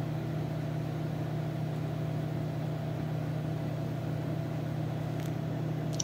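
Two microwave ovens running together: a steady, even hum.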